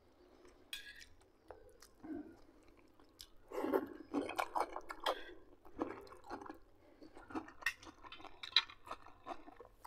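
A man chewing food with his mouth close to the microphone, in irregular spells from about three and a half seconds in, with scattered small clicks.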